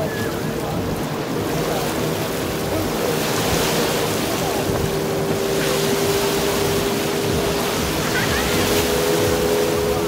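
Sea surf washing steadily onto a beach, with the steady drone of a motorboat engine out on the water, strongest midway.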